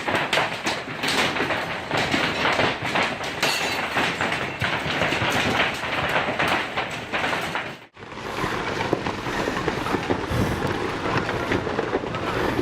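Hailstorm: hailstones pelting against windows and the building in a dense, continuous clatter, broken off for an instant about 8 seconds in.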